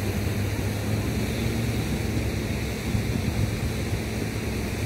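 Steady seafront noise of wind and water, with a low steady hum underneath.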